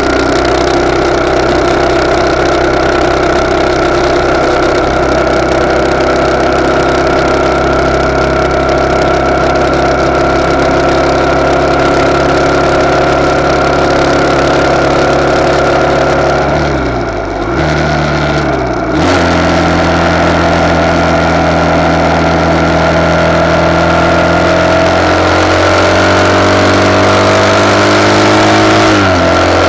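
RPS Hawk 250's single-cylinder four-stroke engine running at cruising speed through a de-catted CRF230 exhaust, heard from a handlebar-mounted camera. The revs dip and recover about two-thirds of the way through, as in a gear change, and settle lower. They then climb slowly and dip again near the end.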